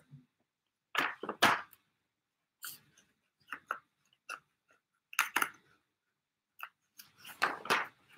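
Pages of a 1940s LIFE magazine being handled and turned: short, irregular rustles and crinkles of the old paper, a cluster of them near the end.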